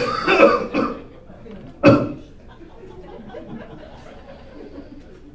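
A man coughing hard into his fist close to a microphone: a quick run of rough coughs in the first second, then one more sharp cough about two seconds in.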